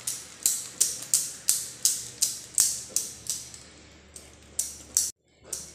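Wire whisk beating a thick semolina and wheat-flour batter in a metal pot, mixing in baking soda. It makes a rhythmic clinking of the whisk against the pot, about three strokes a second, with a short pause part-way through.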